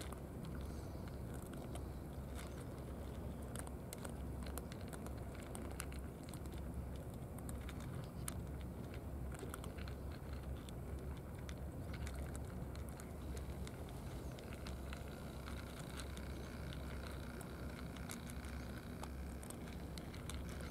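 Cats crunching dry kibble from trays: many small irregular clicks over a steady low rumble.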